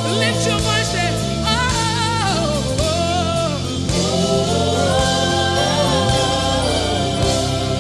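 Live gospel praise music: a lead voice sweeping up and down in quick runs over a full band and backing singers.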